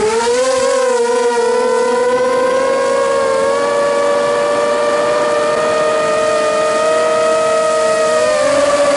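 Onboard sound of an RC multirotor's electric motors and propellers: a whine that climbs steeply in pitch in the first half second as it throttles up off the ground, then holds a steady pitch in flight, shifting slightly higher near the end.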